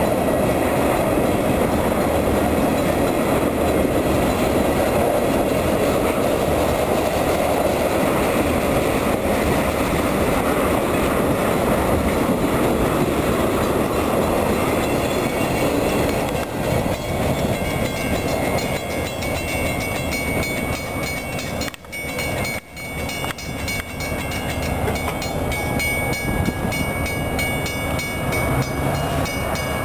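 Freight train of tank cars rolling past close by: a steady rumble and clatter of steel wheels on the rails. It becomes quieter and less even from about halfway through as the end of the train goes by.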